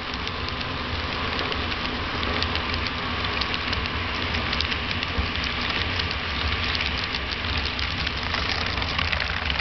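HO scale model freight cars rolling past close by, their metal wheels running on the track in a steady clatter of many small, irregular clicks.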